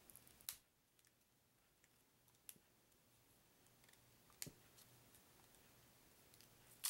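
Near silence broken by four short sharp clicks from hands handling a plastic-wrapped deck of playing cards. The loudest click comes at the very end.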